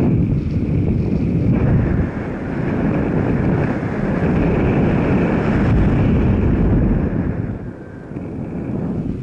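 Wind buffeting the microphone over the low rumble of a moving vehicle, easing off briefly near the end.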